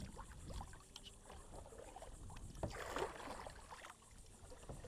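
Kayak paddles dipping and splashing in the water with each stroke, the loudest splash about three seconds in.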